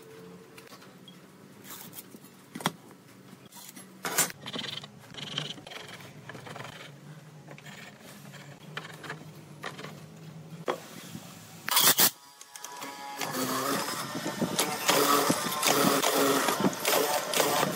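Scattered sharp clicks and taps over a faint low hum while timber is marked out by hand. About 13 seconds in, a hollow-chisel mortiser starts cutting into the wooden board, a dense, fast machine noise that grows louder.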